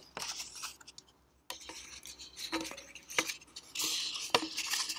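A sheet of paper rustling and scraping as it is rolled up and pushed into an empty metal coffee can, with a few sharp clicks and taps against the can.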